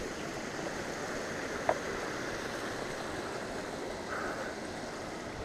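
Steady rushing outdoor background noise while a mountain bike is pushed up a rocky path, with one sharp metallic clink about a second and a half in.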